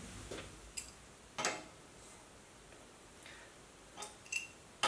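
Faint metal clicks and taps, about seven spread unevenly, the clearest about one and a half seconds in and a few close together near the end. They come from a wrench working the leveling bolt under the tailstock end of a Jet GH1340W metal lathe, a small adjustment to raise the front of the tailstock end and take the twist out of the bed.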